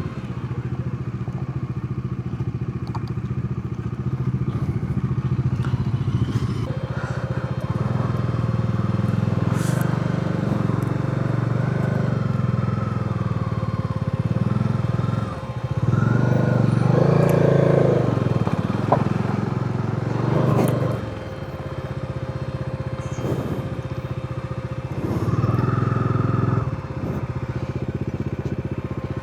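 Motorcycle engine running at low riding speed, swelling louder around the middle of the stretch and again briefly near the end.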